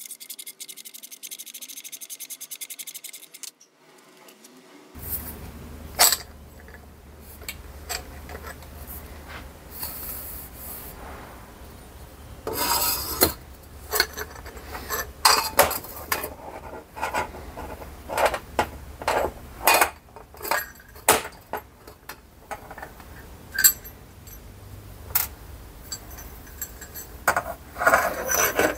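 Hand work on a scooter exhaust silencer: a fast, even ticking at first, then rubbing and scraping with many sharp metal clinks as the silencer core, wrapped in fibreglass packing and steel wool, is slid out and handled.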